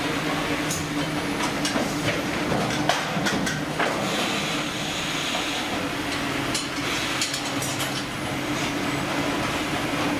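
Steady machinery drone with a low hum, with scattered metallic knocks and clanks throughout and a brief hiss about four to six seconds in.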